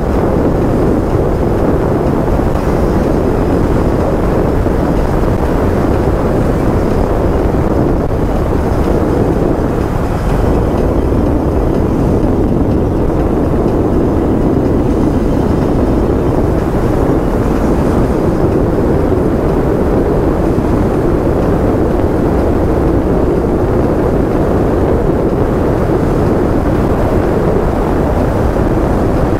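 Steady rush of wind and road noise on the microphone of a motorcycle cruising at a constant speed, with no engine note or motor whine standing out.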